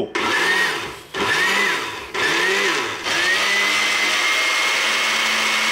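Countertop jar blender pulsed three times, about a second each, its motor pitch rising and sagging as the blades catch, then running steadily at an even pitch. It is blending canned tomatoes and komatsuna with water into vegetable juice.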